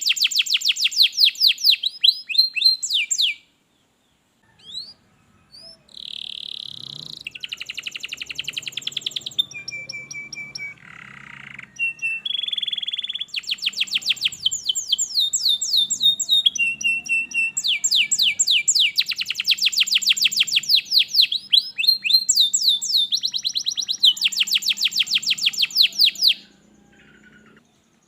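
Domestic canary singing: fast trills of rapidly repeated sweeping notes, switching from one phrase to the next. There is a pause of a couple of seconds early on, and the song stops near the end.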